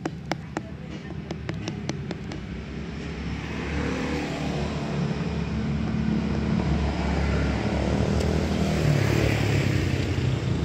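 A road vehicle's engine passing on the street, building up from about three seconds in and staying loud. A few light clicks in the first two seconds.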